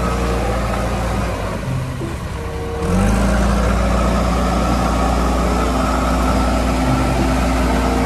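Diesel engines of JCB backhoe loaders running as they drive through muddy floodwater, with water splashing from the wheels. About three seconds in, the engine sound gets louder.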